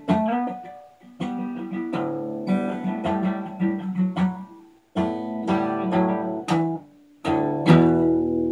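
Acoustic guitar played solo, strummed and picked chords each left to ring and fade, in phrases separated by short pauses: the instrumental close of a song.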